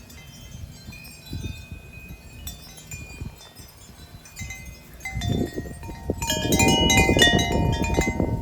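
Several tubular wind chimes, among them Music of the Spheres Balinese soprano and Japanese alto chimes, ringing in strong gusting wind. A few scattered notes sound at first. Then a gust about five seconds in brings wind rumble on the microphone and a dense run of many overlapping chime strikes.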